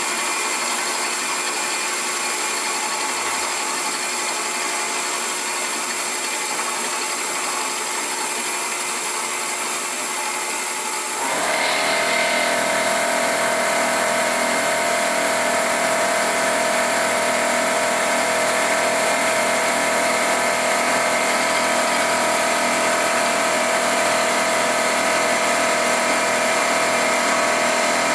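Milling machine cutting a Volkswagen five-cylinder main bearing cap, which is being machined to take a lower thrust washer: a steady machining noise. About eleven seconds in it gets louder and a steady high tone sets in.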